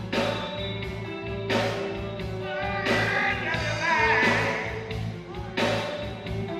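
Band music with a steady beat: bass, drums and a wavering melodic lead line, which may be voice or guitar.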